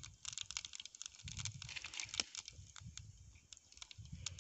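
Whole spice seeds sizzling and crackling in hot oil in a small frying pan over a wood fire: a dense, irregular patter of small pops.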